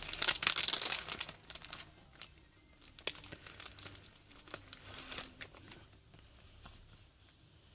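Foil wrapper of a Pokémon card booster pack crinkling and tearing, loudest in about the first second, then softer scattered crinkles and ticks for a few more seconds.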